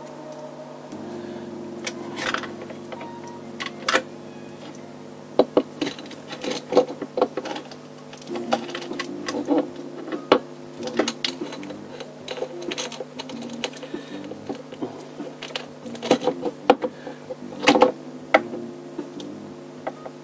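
Irregular metallic clicks, clinks and knocks of hand tools and parts being handled during work on a Lambretta scooter engine.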